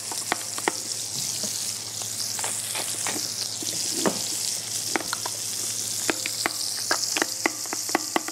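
Thin slices of Leberkäse frying on high heat in a pan with a steady sizzle, while a spoon stirs sauce in a small glass jar, clinking against the glass again and again.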